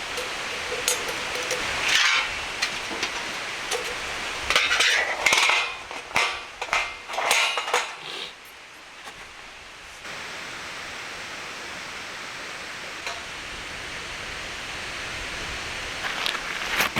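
Metal cookware and utensils clinking and knocking as they are handled: a busy run of clinks over the first eight seconds, then a steady quiet hiss, then a few more clinks near the end.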